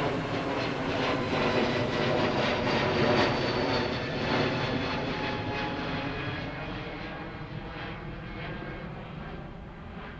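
Twin-engine jet airliner passing overhead: a steady jet engine roar with whining tones running through it, loudest a few seconds in, then slowly fading as the aircraft moves away.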